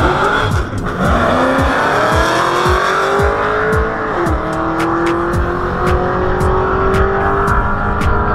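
Drag-racing car accelerating hard down the strip at full throttle. Its engine note climbs steadily, drops suddenly at a gear shift about four seconds in, then runs on near-level.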